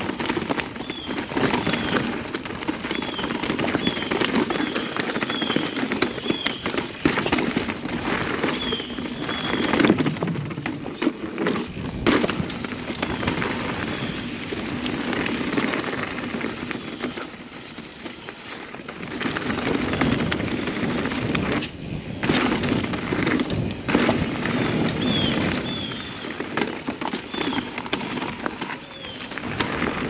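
Mountain bike riding a rough trail: a continuous rattle and clatter of tyres over rocks and roots, chain slap and frame knocks, with many sharp knocks.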